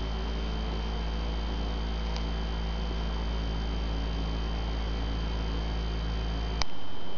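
Steady low electrical hum with a faint high whine, most likely noise in the recording rather than anything in the scene. About six and a half seconds in there is a sharp click, and the hum cuts off with it.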